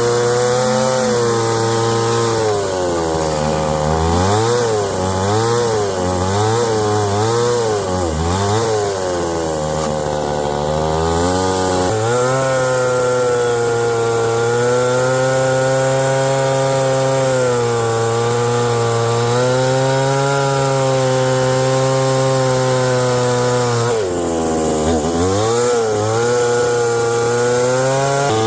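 A small engine running hard, its pitch sagging and recovering again and again as if under a varying load, then holding steady, with another deep dip and recovery near the end.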